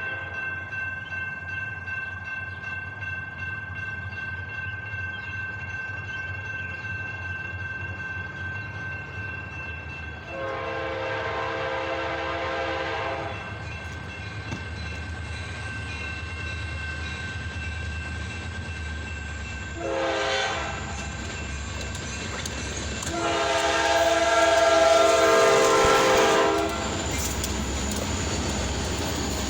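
Freight train approaching a level crossing. The crossing bell rings in a fast, steady pulse while the lead locomotive's air horn sounds a long blast about ten seconds in, a short one about twenty seconds in, and a loud long blast a few seconds later: the crossing signal. The locomotives' rumble builds underneath.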